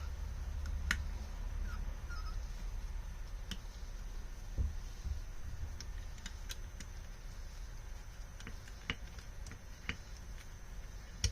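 Scattered light clicks and taps of small bolts and carburetor-rack parts being handled and fitted, about one every second or so, over a low steady hum.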